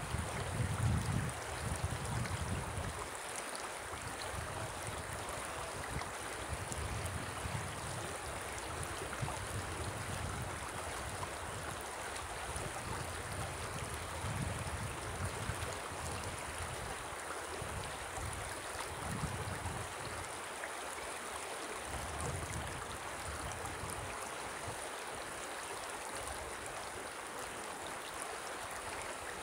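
Shallow river flowing over stones, a steady rushing of water. Wind buffets the microphone with low rumbles in the first few seconds and now and then after.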